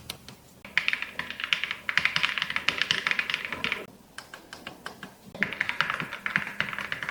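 Fast typing on a Cocoon Breaker 75 K1 Pro mechanical keyboard: a quick run of key clicks, a pause of about a second and a half, then another quick run.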